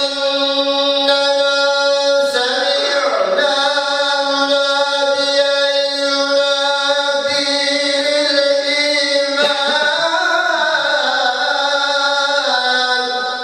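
Solo male voice chanting a religious recitation through a microphone, holding long steady notes broken by two ornamented, wavering runs, then trailing off at the end.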